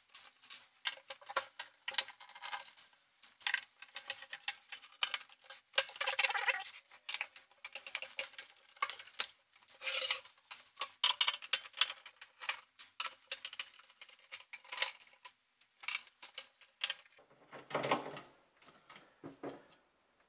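Phillips screws being backed out of an aluminium floodlight housing with a screwdriver: a stream of small irregular metal clicks, clinks and short scrapes as the screws, tool and metal case are handled and the screws are set down on the desk.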